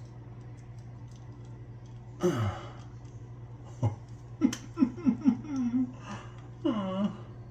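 A man groaning and grunting in pain as he works his own wisdom tooth loose with pliers. There is a long falling groan about two seconds in, then a quick run of short strained grunts and a moan near the end, over a steady low hum.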